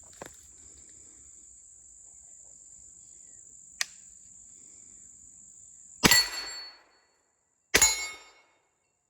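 Two shots from a Kel-Tec Sub 2000 9mm carbine, about six and eight seconds in, each with a short ringing tail. Before them a cricket's steady high trill and a couple of faint clicks.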